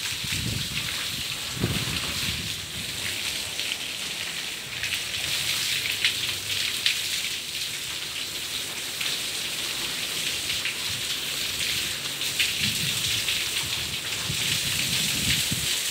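Water pouring down from a freshly cast concrete roof slab that is being flooded for curing, splashing steadily onto the wet floor below. A few low bumps sound near the start and again near the end.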